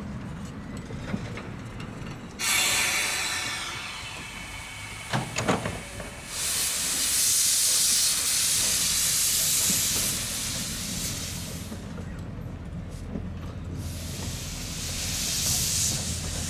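Small narrow-gauge steam tank locomotive moving off slowly, its cylinder drain cocks venting steam in loud hissing blasts: one starts abruptly about two seconds in, a longer one runs from about six to ten seconds, and another swells near the end. A brief shrill sound comes about five seconds in.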